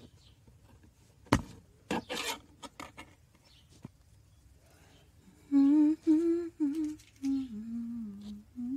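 A person humming a tune with no words, coming in a little past halfway and holding wavering notes; it is the loudest sound. Before that, a few sharp clicks and a short scratchy rub from thin wire being handled.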